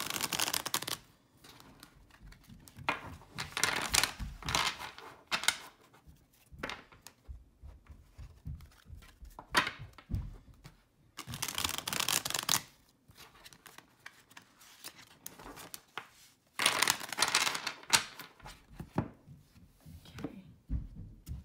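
Tarot deck being riffle-shuffled by hand: a fast whirring flutter of cards riffling together, about four times, each a second or two long with short pauses between as the halves are squared up.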